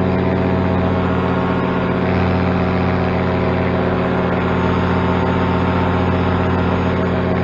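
Paramotor engine and propeller running steadily at cruise power in flight, a constant drone with no change in pitch.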